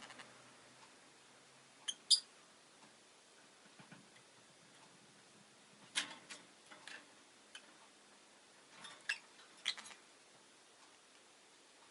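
Rosy-faced lovebird giving scattered short, sharp high chirps in small clusters with quiet gaps between, the sharpest about two seconds in.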